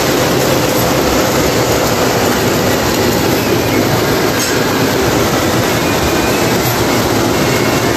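Steady rumble of O-gauge toy trains running on three-rail metal track, wheels rolling and clattering.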